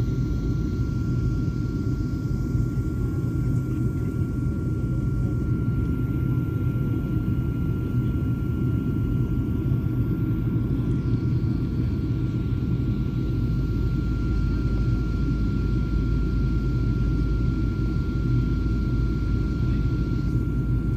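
Helicopter running: a steady low rumble with a thin, steady high whine over it.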